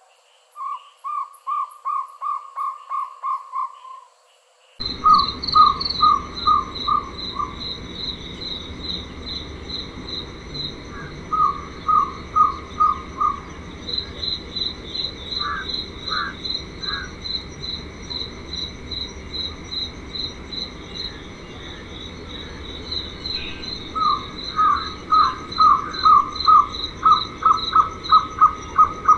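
Jungle owlet calling in runs of evenly spaced notes, about three a second. The calls come in short bursts, then a long, louder run builds near the end. From about five seconds in, an insect chirps steadily and fast behind it.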